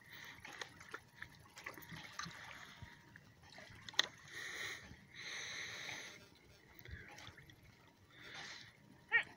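Water sloshing and splashing as a moose swims close alongside a small boat. It comes in soft, uneven surges, the longest about halfway through, with a few light knocks.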